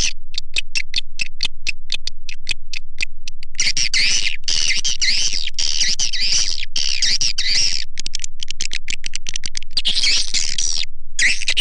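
Swiftlet call recording used to lure swiftlets: a rapid run of sharp clicks, about eight a second, gives way to dense, high, continuous twittering chirps, with a brief break near the end.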